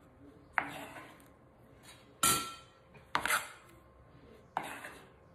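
Chef's knife knocking on a wooden cutting board and against a stainless steel colander as chopped spinach is moved into it: four sharp knocks, unevenly spaced, some with a brief metallic ring.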